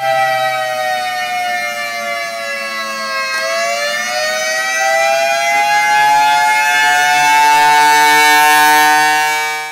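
Federal Signal Thunderbolt 1000T civil defense siren with rotating horn sounding the Attack signal: a loud two-note chord that falls in pitch for about three and a half seconds as the chopper cuts out, then rises again and levels off as it kicks back in.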